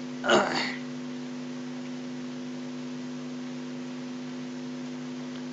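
Steady electrical hum in the recording: several fixed low tones sound together without change. A brief snatch of a man's voice comes just after the start.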